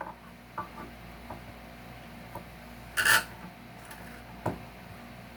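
Hand tool working staples and nails out of a salvaged wooden board: a few small clicks, a short scrape about three seconds in, and a single knock about a second and a half later.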